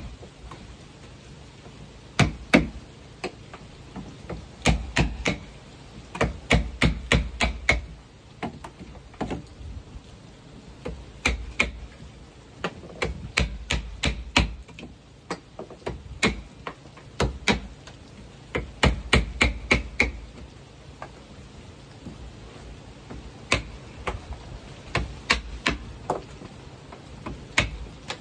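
Hammer blows, likely driving nails into wood, struck in quick runs of about four to eight blows with short pauses between, some blows with a brief metallic ring.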